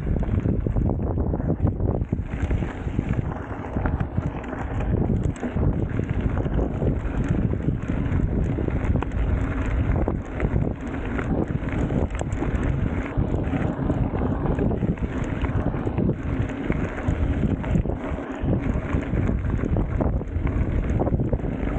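Wind buffeting the microphone of a camera on a moving mountain bike, over the irregular rumble and rattle of knobby tyres rolling on a gravel dirt track.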